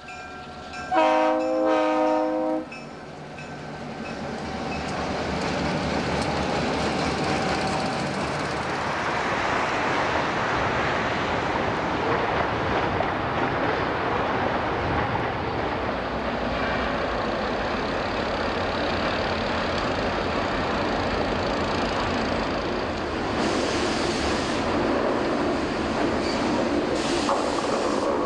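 A diesel locomotive's multi-note air horn sounds a blast about a second in. Then the locomotives run toward the listener with a covered-hopper train, their rumble swelling over several seconds and then holding steady.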